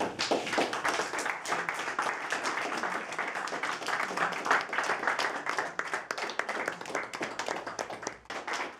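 A small audience applauding: dense hand clapping that starts abruptly and thins out near the end.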